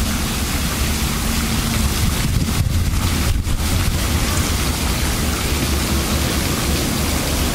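Wind buffeting the microphone: a steady low rumble with hiss, over a faint steady hum.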